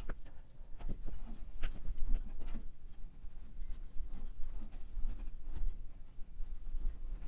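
Small tubing cutter being turned around a copper water supply pipe, its wheel scraping and ticking in short, uneven strokes as it scores the pipe.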